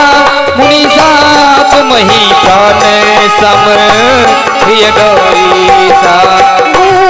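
Instrumental interlude of Indian devotional music: a dholak drum keeps a steady rhythm under a sustained, gliding melody on harmonium and electronic keyboard.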